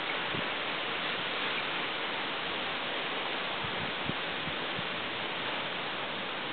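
Steady, even hiss of heavy rain and wind in a thunderstorm, with a few faint low knocks about four to five seconds in.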